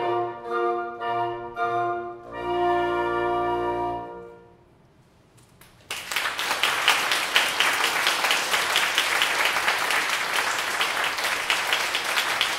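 Wind quintet of flute, oboe, clarinet, bassoon and French horn playing the closing chords: a few short chords, then a held final chord that stops about four seconds in. After a brief hush, audience applause breaks out about six seconds in and keeps going.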